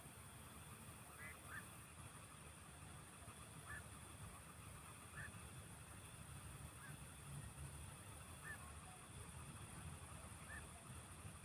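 Faint, short honking animal calls, one every one to two seconds, over a steady high hiss and a low rumble.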